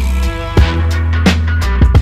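Music with a steady drum beat over a heavy, sustained bass line.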